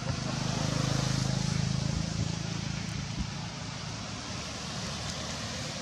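Low engine hum of a passing motor vehicle, swelling over the first two seconds and then fading, over a steady outdoor hiss, with a couple of faint thuds.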